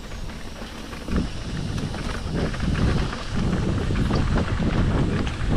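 Mountain bike descending a rocky downhill trail at speed: wind buffeting the microphone, tyres rumbling over the ground and the bike rattling and clattering over rocks, getting louder about a second in.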